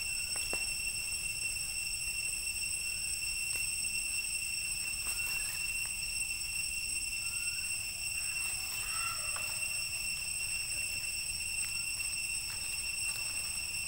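Steady high-pitched drone of forest insects, with a few faint short squeaky calls about halfway through and light rustles in the dry leaves.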